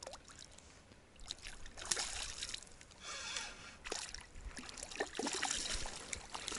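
A hooked bream splashing at the surface of shallow water as it is reeled toward the bank, in several separate splashes. The bream is foul-hooked, snagged by accident rather than biting.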